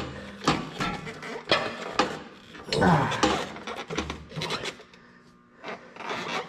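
A 1973 Ford 3000 tractor's left brake pedal being worked onto its keyed shaft: irregular clicks, knocks and scraping as the keyway is lined up, with a louder stretch of scraping about three seconds in.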